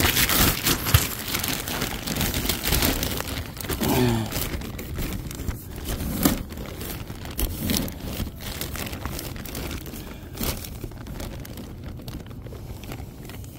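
Irregular crinkling, rustling and scraping handling noise with scattered clicks and knocks, from hands, clothing and a pipe inspection camera working close to the microphone.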